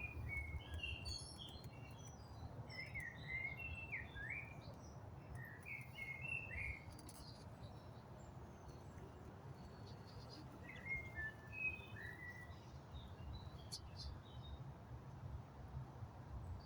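Small birds chirping in short bursts of song, several times, over a low steady rumble.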